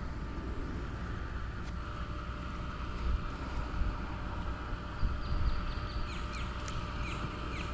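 Wind rumbling on the microphone in open air. From about five seconds in, a bird gives a quick run of short calls that slide downward in pitch.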